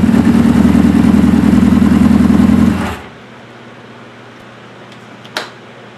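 Suzuki GS550's air-cooled inline-four engine running steadily at idle, with a Colortune plug in one cylinder for idle-mixture tuning, then switched off a little under three seconds in. A single sharp click comes near the end.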